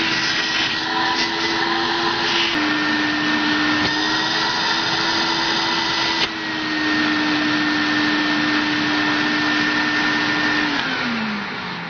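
Canister vacuum cleaner running with a steady motor whine and rush of air, with a sharp click about six seconds in. Near the end it is switched off and the motor winds down, its whine falling in pitch, followed by a click.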